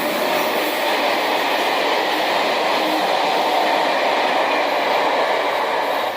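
Class 70 diesel locomotive and its train passing at speed, a loud, steady noise of engine and wheels on rail.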